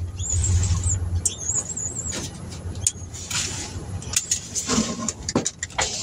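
A car engine idling, heard from inside the cab, as a steady low hum. Several sharp clicks and knocks sound through it, and a thin, wavering high squeak comes in the first two seconds.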